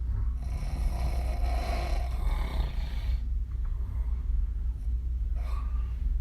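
A woman snoring open-mouthed, her lips blowing on the breath. There is one long snoring breath of about three seconds, then a short breath about two seconds later, over a steady low hum.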